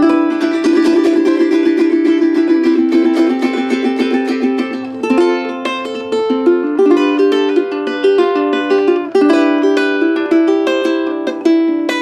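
G-Labo thin-bodied concert ukulele with an all-maple body (Vietnamese maple top, sides and back) played solo. Rapid repeated notes for the first few seconds, then picked chords and melody.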